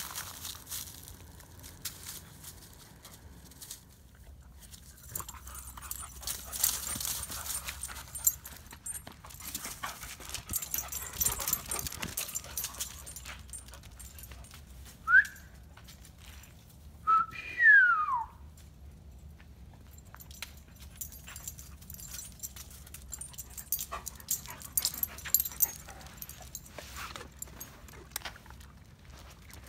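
Dog whining: a short rising whine about halfway through, then a longer whine falling in pitch two seconds later. Between them are low rustling and light footfalls of dogs moving about.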